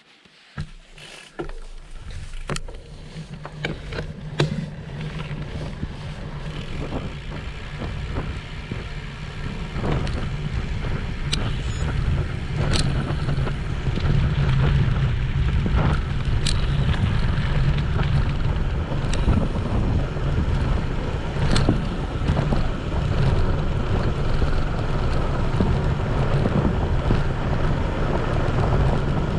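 Wind buffeting an action camera's microphone with low tyre rumble from a riding bicycle, growing louder over the first ten seconds or so and then holding steady. Scattered sharp clicks and knocks from bumps and the bike's parts.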